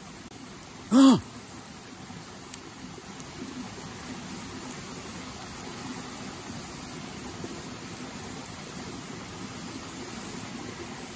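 Steady rush of a mountain stream flowing over rocks. About a second in, a short pitched hoot-like tone rises and falls once and is the loudest sound. A couple of faint ticks follow.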